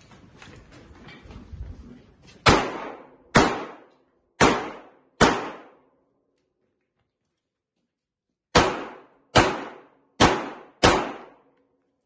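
Eight 9mm pistol shots from a Glock 17, in two strings of four, each a sharp crack with a short echo off the walls of an indoor range. The first string starts about two and a half seconds in at roughly one shot a second; the second follows after a pause of about three seconds at the same pace.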